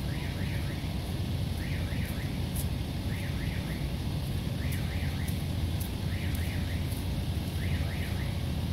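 Railroad level-crossing warning signal sounding: a short warbling electronic chirp of about three quick pulses, repeating every second and a half, over a steady low rumble.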